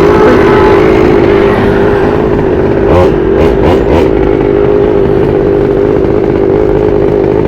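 Small CAG two-stroke engine on a motorized bicycle running steadily after its broken three-shoe clutch was swapped for a two-shoe racing clutch, with a few sharp clicks about halfway through.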